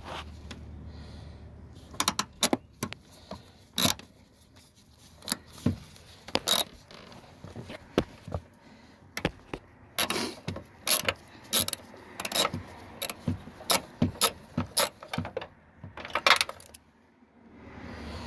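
Irregular sharp metallic clicks and clinks from a hand ratchet and socket working loose a car fender's mounting bolts, coming more thickly about ten seconds in.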